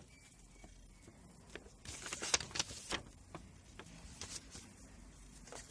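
A folded paper user manual rustling as it is opened out and its pages flipped: short crisp rustles and crackles, thickest about two to three seconds in, with another brief rustle about four seconds in.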